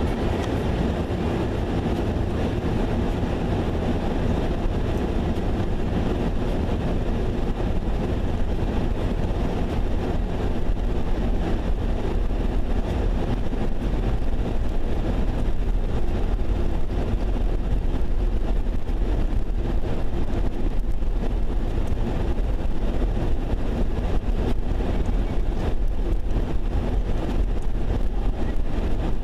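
Steady engine drone and road noise inside the cab of a vehicle driving on a highway.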